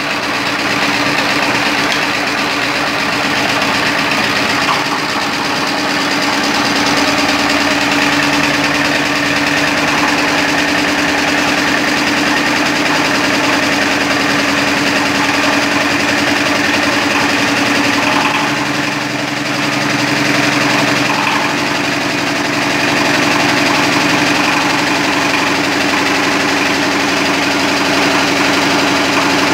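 Water-cooled generator-set engine running steadily at speed while the generator puts out about 220 volts. The running sound dips slightly for a moment about two-thirds of the way through, then carries on as before.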